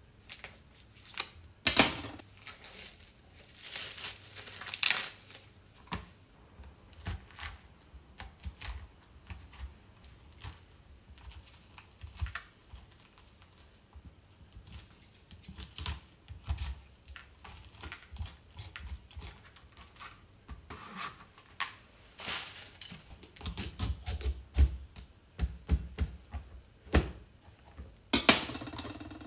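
Food-prep sounds of a kabocha squash: plastic wrap crinkling and being cut off it in the first few seconds, a metal spoon scraping the seeds out, then a kitchen knife cutting through the squash and knocking on a plastic cutting board near the end.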